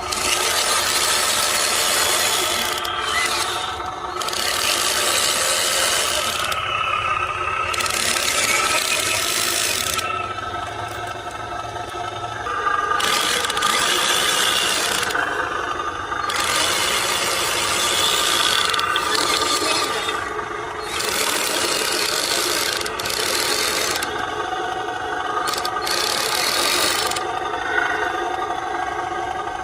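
Electric motor and plastic gearbox of a radio-controlled Hino tow truck whirring as it drives over rough ground, the whine stepping up and down in pitch several times as its speed changes, over a gritty rasping.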